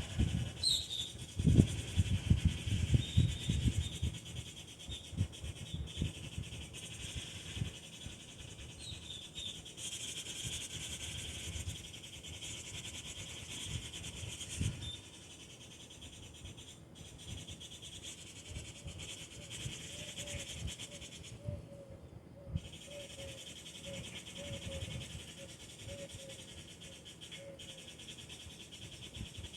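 Wild birds calling over a steady high insect drone: a few short high chirps, then in the second half a long run of low, evenly repeated notes, about two a second. Low thumps in the first few seconds, like handling or wind on the microphone.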